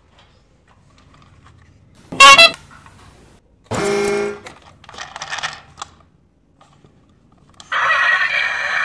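Battery-operated toy auto-rickshaw's electronic sound module. There is a very loud short sound about two seconds in, then a horn-like toot about four seconds in. Near the end a loud continuous electronic sound starts up and keeps going while the toy's lights flash.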